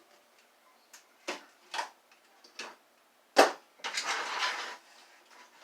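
Plastic vacuum parts being handled: a few light clicks and knocks, then one sharp knock midway, followed by about a second of scraping and rustling.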